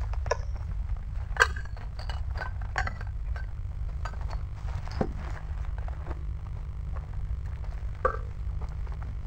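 Steady low rumble on the microphone, with scattered sharp clicks and clinks: the loudest about a second and a half in, others near five and eight seconds in.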